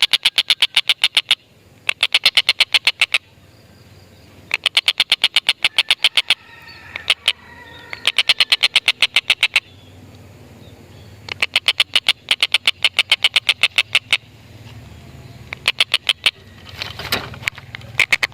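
Stork-billed kingfisher (tengkek buto) giving its cackling 'ngekek' call: rapid runs of sharp 'kek-kek-kek' notes, about nine a second, in bursts of a second or two repeated again and again with short pauses.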